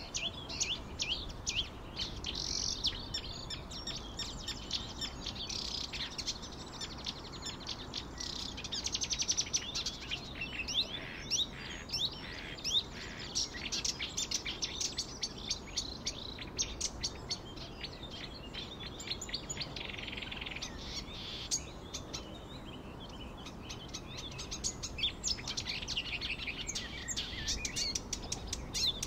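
A chorus of small birds chirping, with many short, high calls overlapping.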